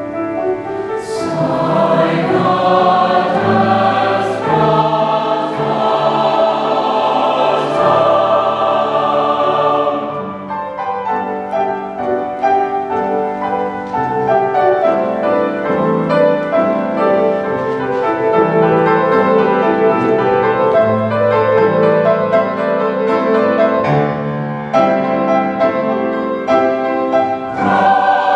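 A mixed chamber choir singing a choral piece in harmony, with long held chords.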